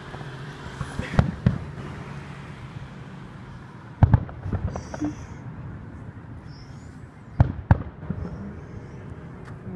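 Aerial fireworks shells bursting at a distance: sharp booms in quick pairs about a second in and again past seven seconds, a single loud boom about four seconds in followed by a few smaller pops.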